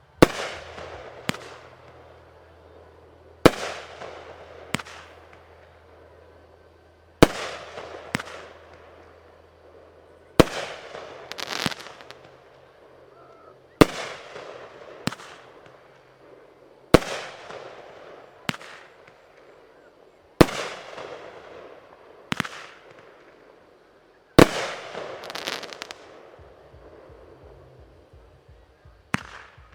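Aerial fireworks bursting in a steady sequence, a loud bang every three to four seconds, each followed about a second later by a smaller bang and a crackling tail.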